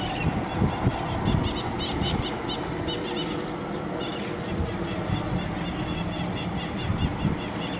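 Helicopter passing at a distance, its engine and rotors a steady low rumble with uneven throbbing, while birds chirp over it in quick, short high calls.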